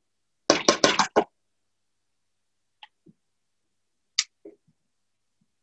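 Kitchen utensils and cookware clattering: a quick run of about six sharp knocks in well under a second, then a few faint scattered clicks and taps, as chopped aromatics are tipped into a hot pan.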